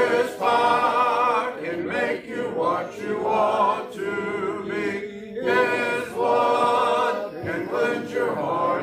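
A congregation singing a hymn a cappella, without instruments, with a man's voice leading at the microphone; phrases are held and joined by short breaks for breath.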